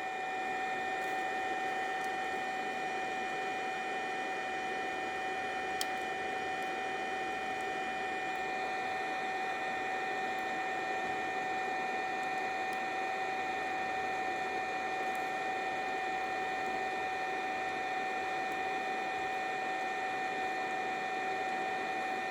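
Venom mini ductor induction heater running steadily with a high, even whine while heating a seized, rusted nut; a faint crackle about six seconds in.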